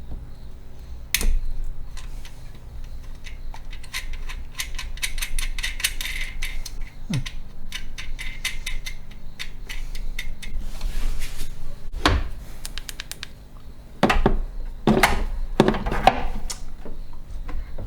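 Metal hand tools and parts clinking and clattering during engine-bay work, with a quick run of clicks about five seconds in and louder metal clanks near the end.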